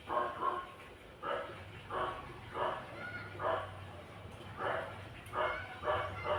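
A dog barking repeatedly, about ten short barks in a loose, uneven rhythm, with a faint steady low hum underneath.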